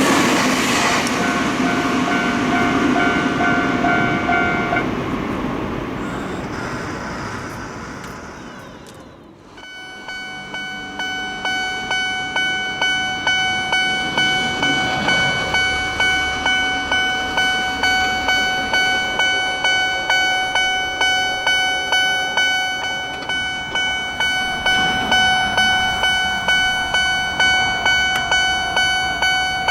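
A train passing, its running noise fading away over several seconds, with a held horn note from about a second in that lasts some four seconds. Then a Japanese level-crossing warning bell rings its steady repeated "kan-kan", about two strikes a second.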